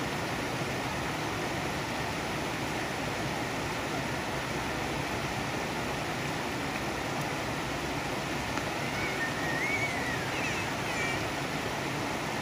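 Water pouring out of the culvert pipes under a low bridge and splashing into a shallow stream: a steady rushing. A few faint high wavering chirps come through about nine seconds in.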